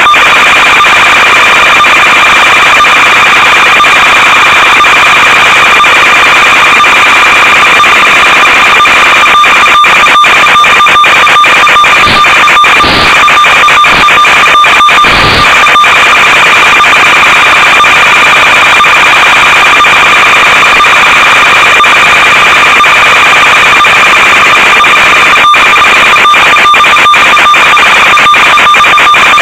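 Loud steady hiss and buzz with a constant high whine, crackling with many short clicks and dropouts, typical of the audio channel of an analog FPV video link on an RC plane in flight.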